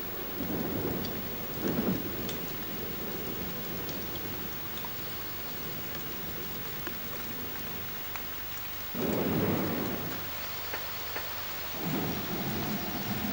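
Rain falling steadily: a continuous hiss with faint scattered drop ticks. Short low rumbles rise out of it at the start, about nine seconds in and again near the end, during a thunderstorm.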